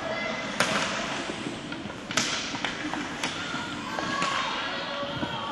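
Ice hockey play: several sharp clacks of sticks and puck striking the ice and boards, over a steady murmur of voices in the rink.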